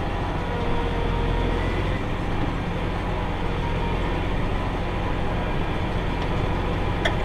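Tractor engine running steadily at working speed while pulling a round baler through hay, with one short click near the end.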